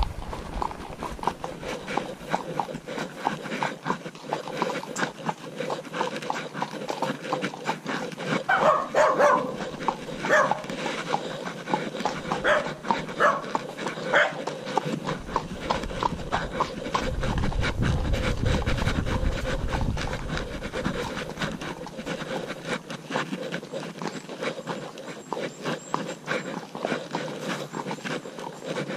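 Horse's hooves clopping at a walk, a steady run of clicks. About nine to fourteen seconds in come several loud, short animal calls.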